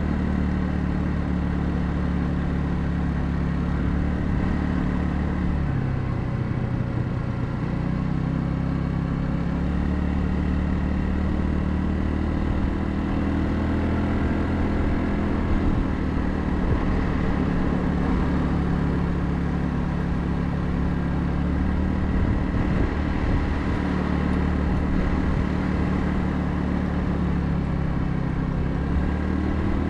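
Royal Alloy GT150 scooter's 150cc single-cylinder engine running under way. Its pitch drops about six seconds in, climbs back over the next few seconds, then holds fairly steady with small rises and falls as the speed changes.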